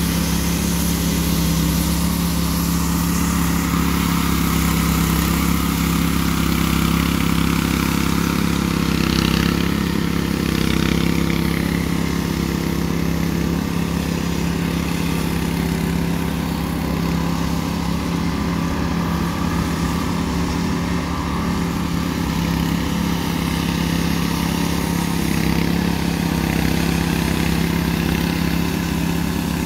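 Walk-behind power trowels (concrete 'helicopters') running steadily, their small petrol engines humming at a constant speed as the rotating blades smooth a fresh concrete slab.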